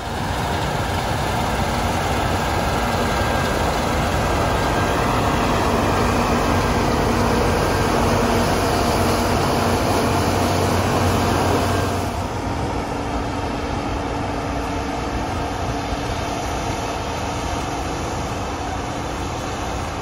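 New Holland CR8.90 combine harvesting wheat with its MacDon draper header: a steady drone of engine and threshing machinery with a low hum running through it. About twelve seconds in the sound changes abruptly, becoming a little quieter and duller.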